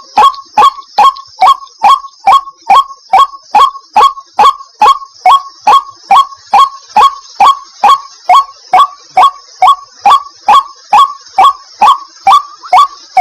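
White-breasted waterhen calling, repeating one short, loud note at a steady pace of about two and a half a second, each note dropping in pitch.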